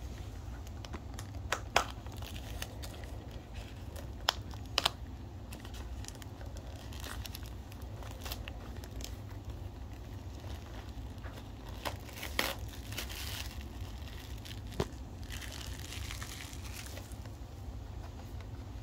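Product packaging being opened by hand: intermittent crinkling and tearing of the wrapping, broken by sharp snaps and clicks, the loudest about two seconds in and again near the middle.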